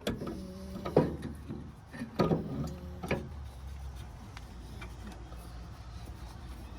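Four sharp knocks in the first three seconds, then a few faint small ticks, as a part and its bolts are worked into place on a backhoe.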